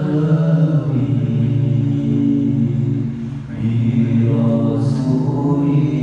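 Group of male voices chanting together into handheld microphones, unaccompanied, in long held notes with a brief pause for breath about three and a half seconds in.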